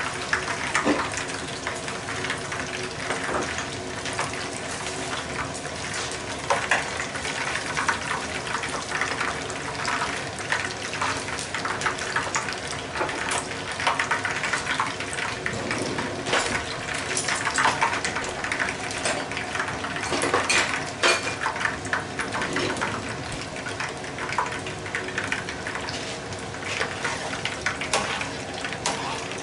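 Shrimp tempura deep-frying in hot oil in a frying pan: a steady sizzle with many small crackles and pops.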